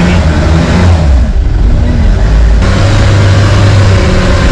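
Off-road vehicle's engine running and revving under load on a rough off-road track, a loud, steady low rumble whose pitch rises and falls.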